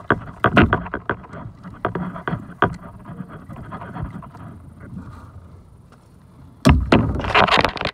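Irregular knocks and clicks of gear on a fishing kayak during a fight with a catfish, then a loud rush of handling noise about seven seconds in as the fishing rod swings up against the camera.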